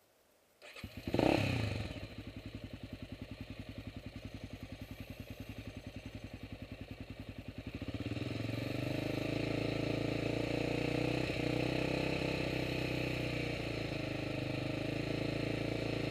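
A 400 off-road engine with an HMF slip-on exhaust and quiet-core insert starts about a second in, idles with an even pulse, then about halfway through is held at a steady higher speed for a sound-level test, measuring just under the 93 dB limit.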